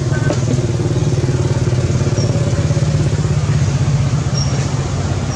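Steady low drone of an idling engine, even in level throughout, with a few brief faint high chirps over it.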